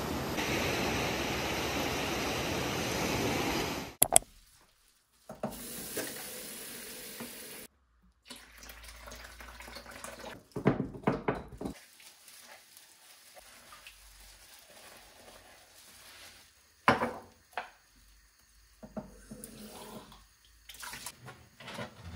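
Tap water running into a sink, cutting off about four seconds in. After that come a shorter run of water and scattered clinks and knocks of dishes being handled at the sink.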